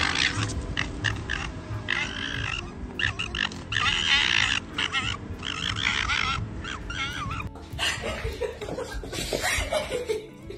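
Two red foxes gekkering and screaming at each other as they fight over food: repeated harsh, wavering screeches in bursts. The calls stop after about seven seconds.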